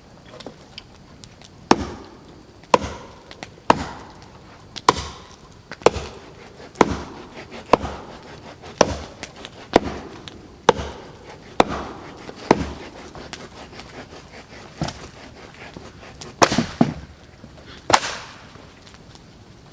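Wood being chopped with an axe or hatchet, steady strikes about once a second, then a pause and a few more strikes near the end.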